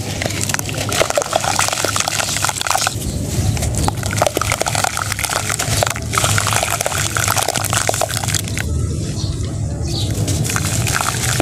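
Soaked red sand-cement blocks being crushed and crumbled by hand over a bowl of muddy water: dense wet crunching and crackling with water sloshing and dripping, easing briefly twice.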